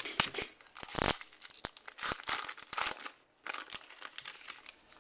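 Crinkling and rustling of a trading card pack wrapper as baseball cards are handled, in a run of short bursts with sharp clicks.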